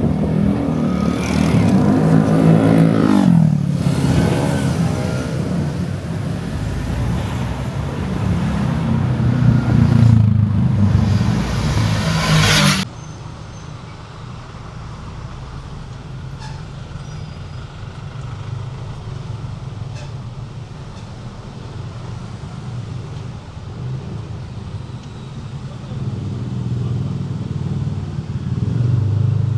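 Road traffic and engine noise: a vehicle engine drops in pitch as it passes, then loud engine and road noise continues. About halfway through it cuts off abruptly to a quieter, duller steady rumble of driving, which grows louder again near the end.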